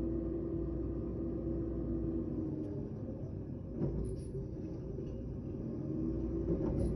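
Front-loading recycling truck running, its engine and hydraulics giving a steady hum and rumble as the lift arm raises the bin up over the cab to tip it. Short knocks sound about four seconds in and again near the end.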